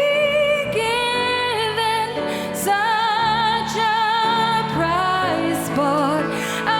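Choir and orchestra performing a slow worship song: a high melody line of held notes with vibrato over sustained accompaniment.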